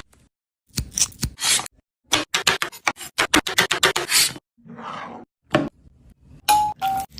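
Kitchen knife chopping on a cutting board in quick runs of strokes, about five a second, with short pauses between the runs. Two short squeaks come near the end.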